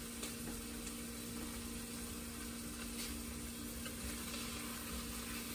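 Food frying in a small pan, a steady sizzle over a steady low hum, with a couple of faint clicks from the spatula.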